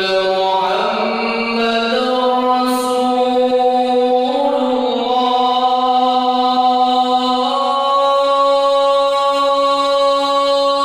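A man's loud voice calling the Islamic call to prayer (adhan) into a microphone. It is one long unbroken melismatic phrase of held notes, the pitch stepping to a new note several times.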